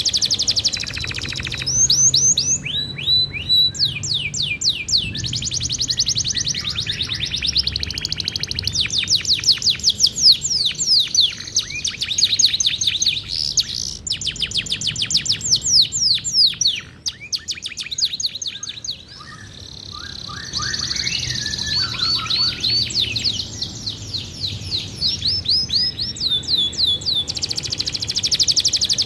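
Domestic canary singing a long song of fast repeated trills and rolls, changing from one trill to the next, with a short quieter break a little past the middle.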